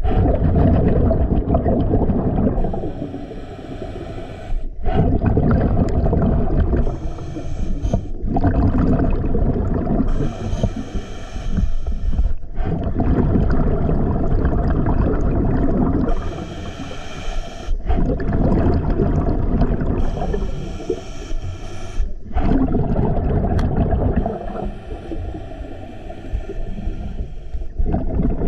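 Scuba diver breathing through a regulator underwater: a hissing inhale alternates with a louder, rumbling burst of exhaled bubbles, about six breaths in steady rhythm, one every four to five seconds.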